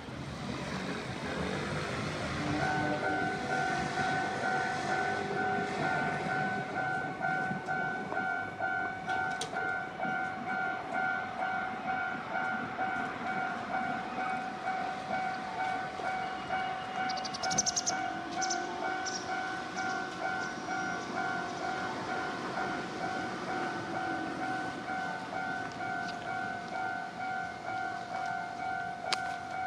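Japanese railway level crossing warning bell ringing in a rapid, steady repeat, starting about two seconds in: the crossing is closed for an approaching train. A train runs through the crossing around two-thirds of the way in, with high squealing bursts as it passes.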